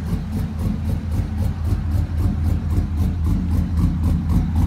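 Cammed pickup truck engine idling with a choppy lope, pulsing evenly about seven times a second.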